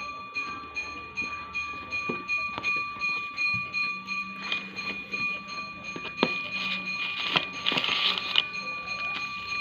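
Packaging being handled and opened: scattered clicks, knocks and rustling, with a longer burst of rustling or tearing about eight seconds in, over a steady high-pitched whine.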